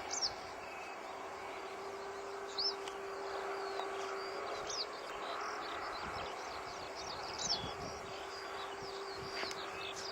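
Small birds chirping in the open, short quick rising and falling calls every second or so, over a steady background hiss and a faint steady hum.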